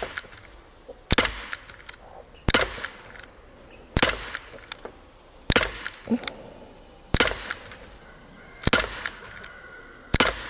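Daisy Powerline 5501 CO2 blowback BB pistol firing seven shots at an even pace, about one every second and a half. Each is a sharp crack with a fainter click right after it.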